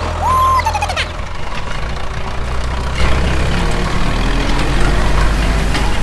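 Tractor engine running steadily, a low drone that gets louder about three seconds in, with a brief high sliding tone just after the start.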